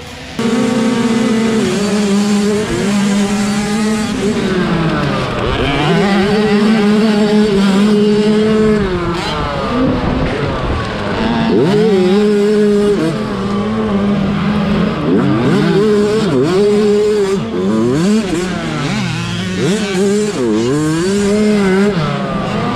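Several small two-stroke youth motocross bikes racing, their engines rising and falling in pitch over and over as the riders open and close the throttle through the track.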